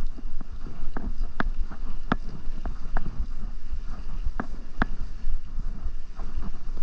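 Wind rushing over the microphone of a mountain bike rider on the move, with a steady low rumble and irregular sharp clicks and knocks from the bike.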